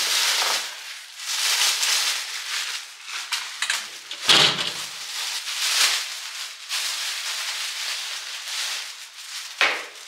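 Thin plastic shopping bags rustling and crinkling as they are opened and handled, with a dull thump about four seconds in.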